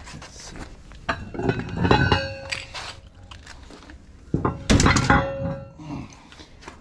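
45-pound weight plates clanking together as they are handled, in two bouts, one about a second in and one near five seconds in, each leaving a short metallic ring.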